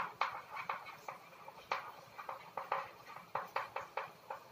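Chalk writing on a blackboard: an irregular run of quick taps and short scratchy strokes as the words are written.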